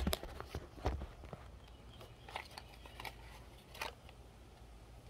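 Faint handling noise: a few scattered light clicks and knocks over a low rumble, as a small part is picked up and the phone is moved.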